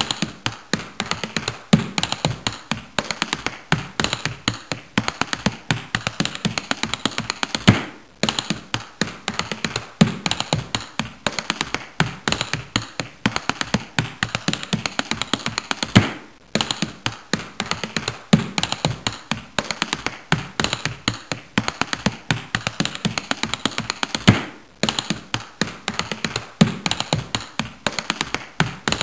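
Rhythmic percussive soundtrack of rapid, dense tapping clicks with a heavier low thump about every two seconds; the pattern cuts out for a moment roughly every eight seconds and starts again.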